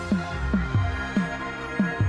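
Electronic background music: held synth tones over a beat of drum hits that each drop sharply in pitch.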